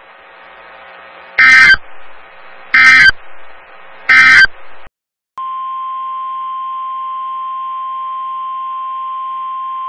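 Three short Emergency Alert System SAME data bursts, about one and a half seconds apart, the end-of-message code closing a weather warning. After a brief gap, a steady single-pitch weather alert tone starts about five and a half seconds in and holds.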